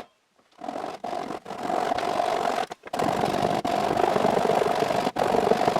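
Power saw running steadily with a steady whine while cutting a strip off a wooden block, broken by several sudden short gaps.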